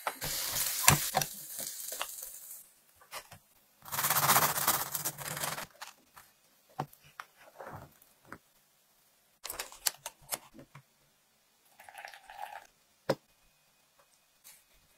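Crisp crackling and crunching of a freshly toasted cheese sandwich's crust as it is handled and pulled apart. A long, loud crunch comes about four seconds in, followed by scattered small crackles and light taps.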